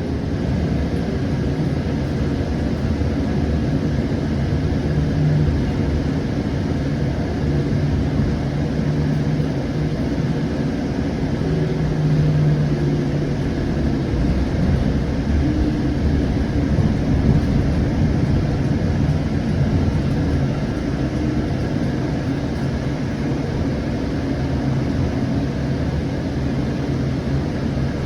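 Onboard running noise of a Siemens S700 light-rail car in motion: a steady rumble of wheels on rail, with a low hum that comes and goes.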